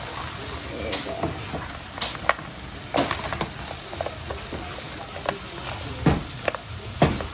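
Dungeness crab, corn and sliced hot links sizzling in a wok as they get a final toss, with a wooden spatula scraping and knocking against the pan every second or so.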